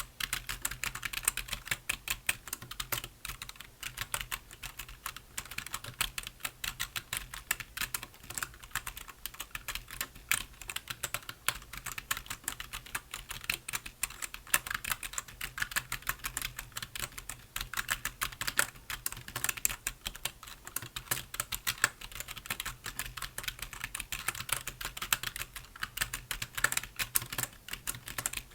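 Continuous fast typing on a computer keyboard: a dense, steady stream of key clicks.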